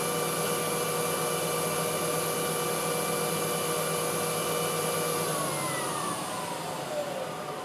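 Denford Novaturn CNC lathe's spindle running with a steady whine, then winding down about five seconds in, its pitch falling as it slows to a stop at the end of the machining program.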